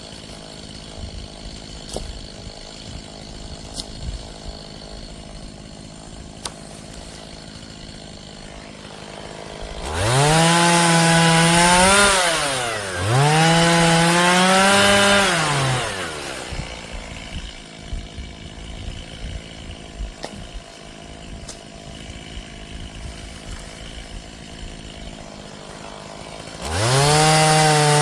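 Two-stroke chainsaw idling, then revved hard twice in quick succession about ten seconds in, each run-up lasting two to three seconds. It drops back to idle and revs up again near the end.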